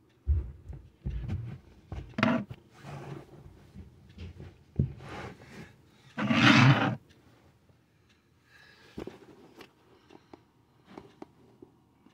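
Handling noise as a small digital clock is set down on a shelf: irregular knocks and thumps, the loudest a scraping rush about six and a half seconds in, then a few faint clicks.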